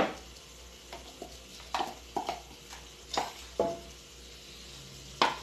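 A spoon knocking and scraping against a bowl and an aluminium cooking pot: a string of short, sharp taps, about seven in all, the loudest at the very start and near the end.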